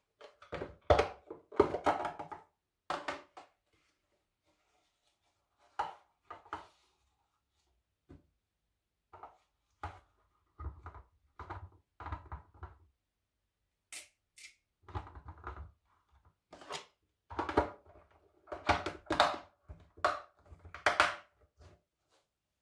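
Plastic food container and pieces of fresh ginger being handled on a kitchen counter: irregular clattering, rustling and light thunks in bursts with short pauses, busiest near the start and again in the last few seconds.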